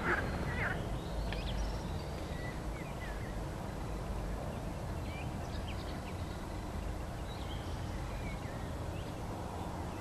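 Scattered short bird chirps and calls over a steady low rumble, an evening outdoor ambience by calm water.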